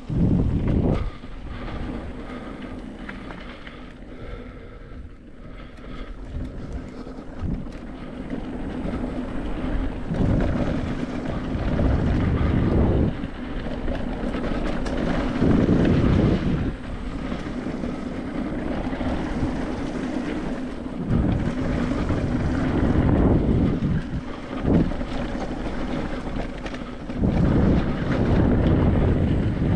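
Wind buffeting the microphone of a mountain bike riding downhill on a dirt trail, with the rumble of the tyres rolling over the ground. The noise swells and eases in several surges.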